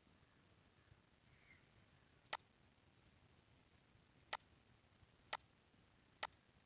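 Computer mouse button clicked four times over faint room hiss: two seconds apart at first, then about a second apart. Each is a sharp click with a softer release click just after it.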